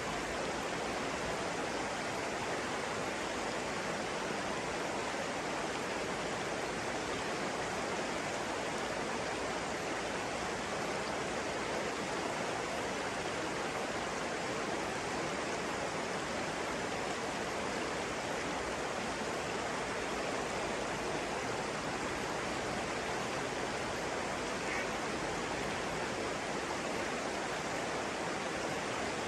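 Flowing water rushing steadily and evenly, like a stream or small cascade.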